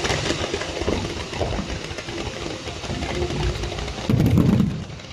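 Fireworks going off: a dense, continuous crackle and rumble from ground fountains and shells firing, with a louder low boom about four seconds in.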